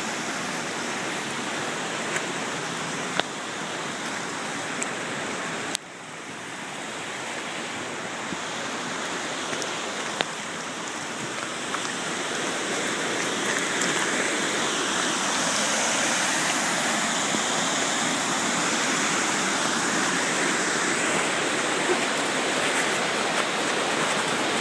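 Steady rush of a big waterfall. The sound drops sharply about six seconds in, then builds back and is louder through the second half.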